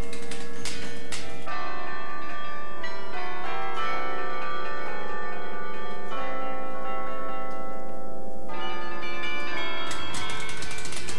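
A carillon of tower bells is played from its wooden baton keyboard, the clappers striking the bronze bells in a tune. There are quick runs of notes at the start and again near the end, with long ringing notes in between.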